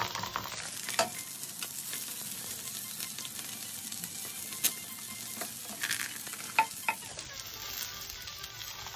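Hot garlic butter sizzling steadily on a baking tray around chicken seekh kababs as they are dabbed with a butter-soaked bunch of coriander, with a few sharp clicks.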